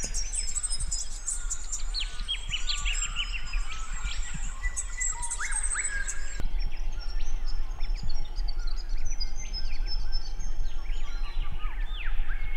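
Many birds chirping and whistling at dawn, with short rising and falling calls overlapping over a steady low background rumble. The mix of calls changes abruptly about halfway through.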